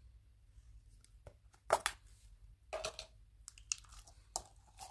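Clear plastic slime tub being handled: a run of short crinkling, crackling plastic noises, the loudest about two seconds in and another near three seconds.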